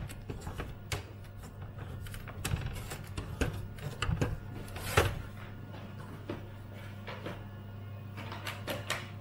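Plastic clicks, creaks and knocks as a jammed mains connector is worked loose from the back of a Commodore 128D's plastic case, with one sharper knock about five seconds in. A steady low hum runs underneath.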